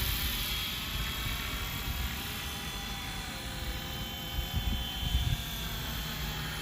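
FlyWing FW450 V3 electric RC helicopter in flight, its motor and rotor giving a steady whine whose pitch wavers slightly as it flies a figure-eight by itself.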